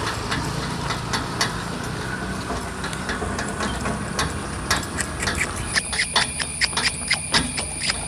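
Horse's hooves clopping on a paved road as it pulls a two-wheeled cart, in a quick, uneven run of sharp clops over the low rumble and rattle of the rolling cart. A steady high whine joins about six seconds in.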